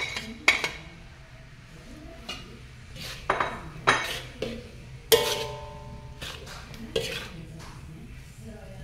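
Metal spatula scraping and clanking against a large metal wok while noodles and scrambled egg are tossed and stir-fried. The knocks are irregular, and one about five seconds in makes the wok ring briefly.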